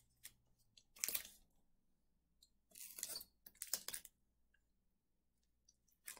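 Printable vinyl being peeled up off its backing liner by hand as the uncut excess is weeded away: short crinkling, tearing rustles about a second in and again around three to four seconds in.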